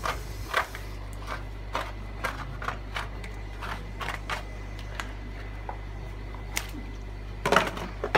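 Scattered light clicks and knocks of a horseshoe crab's shell being handled and pried apart by hand, with a cluster of louder knocks near the end, over a steady low hum.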